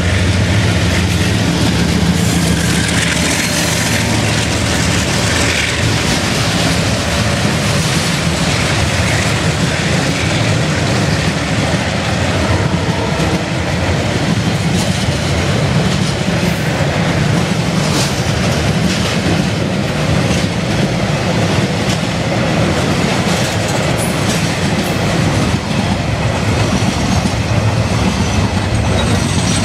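Diesel-electric freight train passing close by: the locomotive's engine running as it goes past at the start, then a long string of container and curtain-sided wagons rolling by with steady wheel clatter on the rails.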